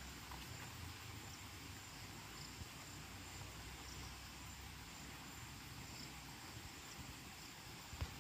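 Faint forest ambience: a thin, steady, high-pitched insect drone over a quiet hiss, with a few faint high chirps and one short soft knock near the end.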